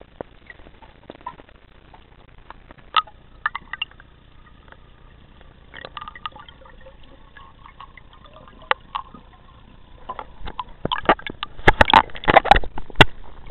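Underwater sound through a camera's waterproof housing: scattered faint clicks and knocks, then near the end a run of loud water gurgling and sloshing.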